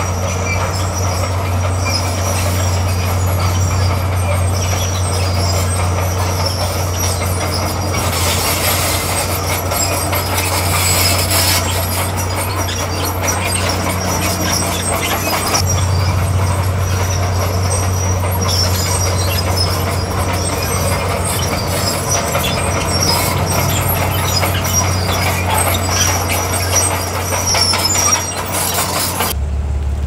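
Small crawler bulldozer's diesel engine running steadily under load, its steel tracks squealing and clattering as the blade pushes crushed stone. Just before the end it cuts to a lower, steadier engine note.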